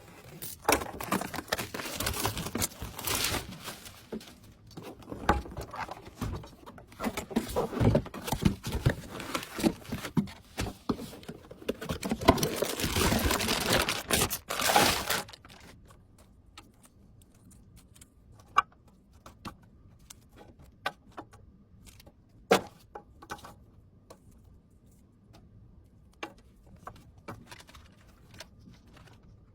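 Hands handling computer parts and packaging: dense rustling, crinkling and clicking for about fifteen seconds, stopping suddenly, then only scattered sharp clicks and taps.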